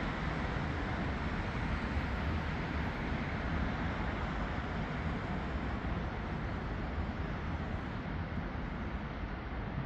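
Steady city traffic noise: a continuous low rumble of road traffic with no distinct events.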